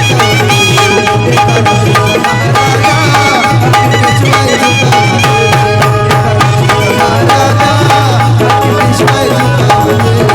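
Instrumental break in a live Marathi Bhimgeet: hand drums playing a fast, steady rhythm under held melody notes, loud and unbroken.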